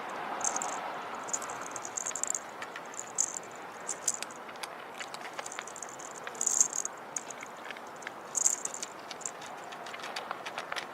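Small rattle or jingle toy batted about by a kitten: irregular light clicks and rattling, with short jingling bursts, the loudest about six and a half and eight and a half seconds in.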